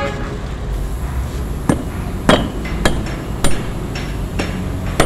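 Steel hammer striking a drift punch held against a Kenter anchor-chain joining shackle, driving its tapered pin. Sharp metal-on-metal strikes with a short ring, roughly every half second, starting a little under two seconds in.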